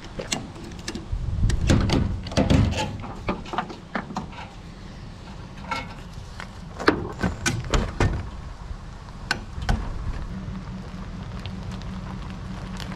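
Metal clicks, clanks and rattles of a ratchet tie-down strap and its hook being worked loose from the stern of a boat on its trailer, over a low steady hum that grows louder near the end.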